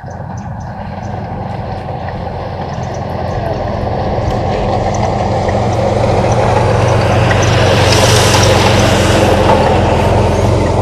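A motor vehicle's engine running with a steady low hum, growing steadily louder as it comes closer over several seconds, then cutting off sharply.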